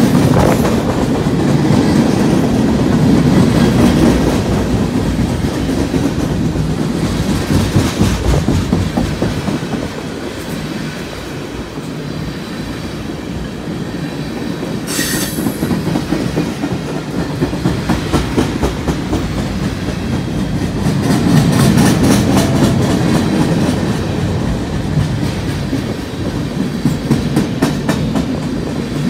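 Union Pacific freight cars rolling past at speed: a continuous rumble with wheels clicking over the rail joints. There is one brief high squeal about halfway through, and the clicks grow sharper and more regular in the second half.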